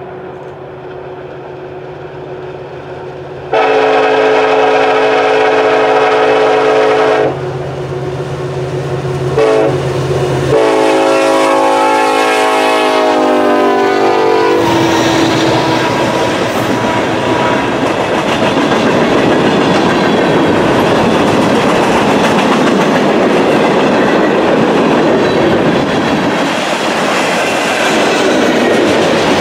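Union Pacific freight train's horn sounds a long blast, a short tap, then another blast that drops in pitch as the locomotive passes, with the diesel engine's low hum between. Then the freight cars roll by with a steady rumble and clatter of wheels on the rails.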